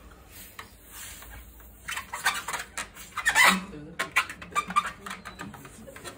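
Inflated rubber balloon squeaking and squealing as it is worked at the neck. A run of short chirps and squeaks starts about two seconds in, with the loudest squeal at about three and a half seconds, and thins out toward the end.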